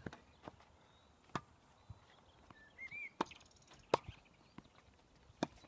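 Tennis ball knocks on an outdoor hard court: the sharp pops of a racket striking the ball and the ball bouncing, several in a row, the loudest about four seconds in. A bird chirps briefly near the middle.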